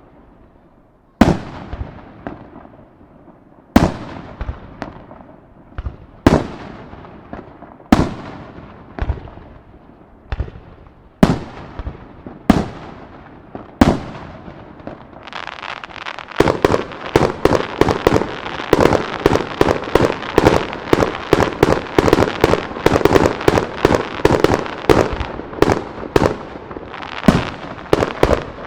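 Aerial firework shells bursting, each loud bang trailed by an echo, going off a second or two apart. About halfway through they give way to a rapid barrage of many overlapping bursts and crackles.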